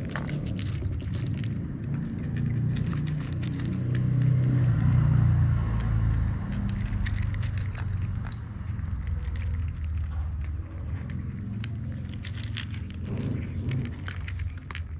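Cats crunching dry kibble from bowls close by, a steady run of small sharp crunching clicks. Under it a low rumble swells to its loudest around the middle, then eases.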